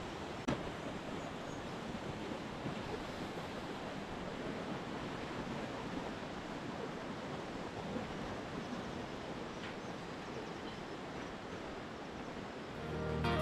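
Steady rush of a fast river's rapids below, an even roar of water with a faint click or two.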